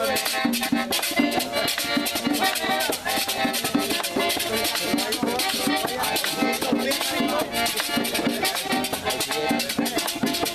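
Live merengue típico played on a button accordion, a two-headed tambora drum struck with stick and hand, and a metal güira being scraped, in a steady repeating rhythm.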